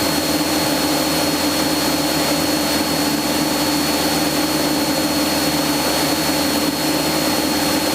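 Steady drone of a Cessna 172SP's four-cylinder Lycoming engine and propeller in cruise, heard from inside the cabin, with a thin steady high whine over it.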